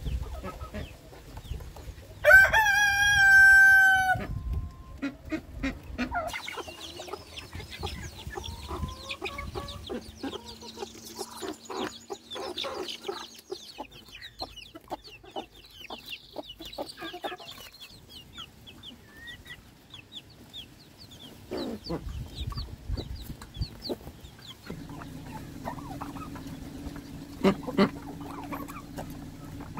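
A rooster crows once, loudly, about two seconds in. Hens cluck on and off after it, with many short high peeps from young chicks.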